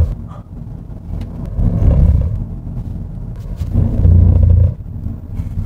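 Road and tyre noise of a Hyundai Avante N (Elantra N) on 19-inch wheels, heard inside the cabin while driving: a deep rumble that swells loudly twice, with the tyres' contact noise on the road surface.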